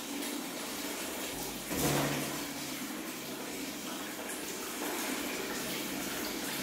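Water running steadily from a tap into a tiled bathroom, with a louder splash about two seconds in from a small monkey moving in the water of a plastic tub.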